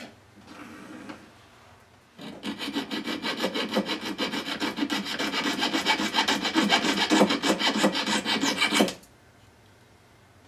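Jeweler's saw with a fine blade cutting through a strip of metal ring-shank stock in quick, even back-and-forth strokes. The sawing starts about two seconds in and stops suddenly about nine seconds in, as the piece is cut to length.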